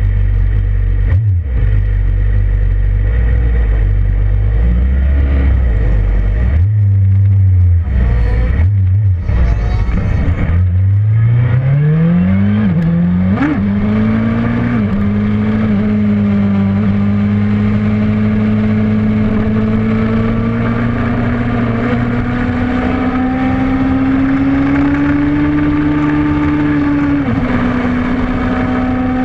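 Suzuki GSX-R motorcycle engine running at a low idle with a few brief breaks for about ten seconds, then revved up over a few seconds and held at high revs. The owner calls it a bad motor.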